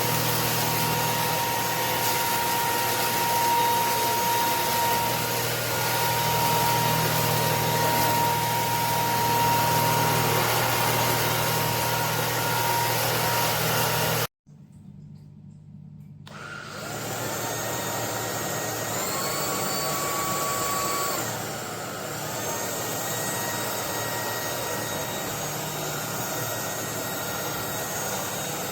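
Cordless stick vacuum cleaner running steadily with a motor whine. It cuts off abruptly about halfway through, then starts up again after a couple of seconds, its whine shifting in pitch a few seconds later.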